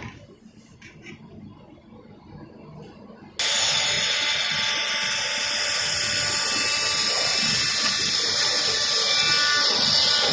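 Welding on stainless steel begins about three seconds in: a sudden, loud, steady hiss with faint whistling tones in it, after a few quiet clicks.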